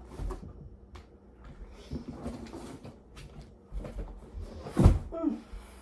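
Handling noises as objects are moved about: rustling and light knocks, with one loud thump about five seconds in.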